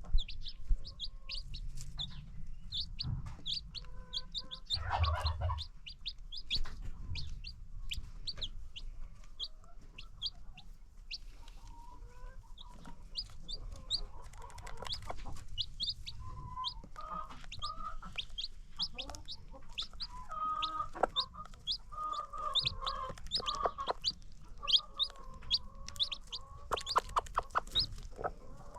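Baby chicks peeping in short, high, rapid calls, with hens clucking low among them.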